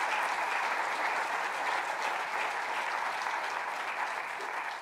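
Audience applause from a seated crowd, a steady mass of clapping that eases slightly and stops near the end.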